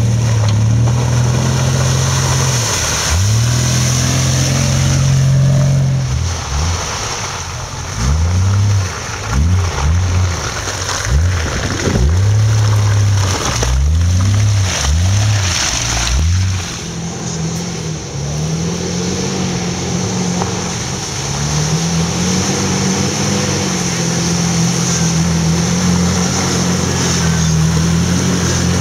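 Off-road 4x4's engine revving hard in repeated surges, the pitch climbing and dropping again and again. About two-thirds of the way through it settles into a steadier, lower run that rises and falls only gently.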